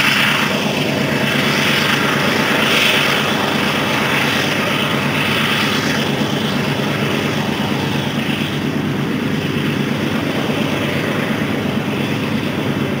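Union Pacific EMD SD90MAC diesel locomotive's engine droning steadily, together with the rolling noise of the grain train. It fades a little as the train pulls away.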